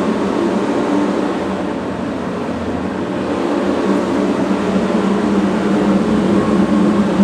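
A steady, loud rumbling drone that holds an even level throughout.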